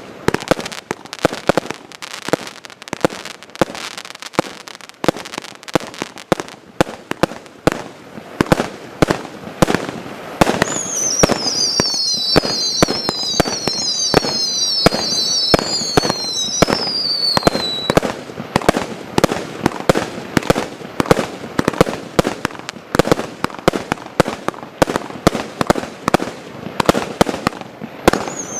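Klasek fireworks going off: a rapid string of shots and bangs, thickening into a near-continuous barrage about ten seconds in. Several overlapping whistles fall in pitch from about ten to eighteen seconds in.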